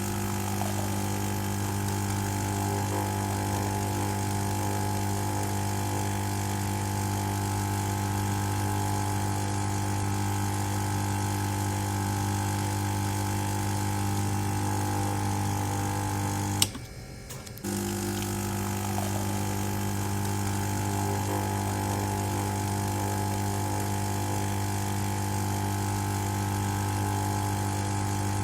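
Espresso machine's pump running with a steady low buzzing hum. It cuts out after a sharp click about two-thirds of the way through, then resumes about a second later.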